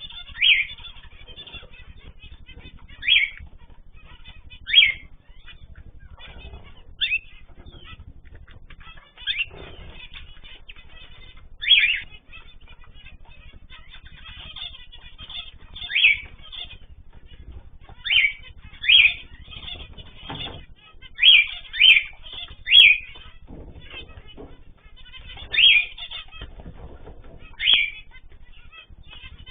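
Mixed aviary of cage birds (cockatiels, zebra finches, canaries) calling: short, loud, high calls every one to three seconds, about fourteen in all, over constant softer chirping.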